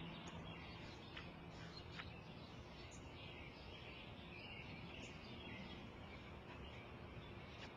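Faint outdoor ambience with small birds chirping now and then, a soft steady hiss underneath.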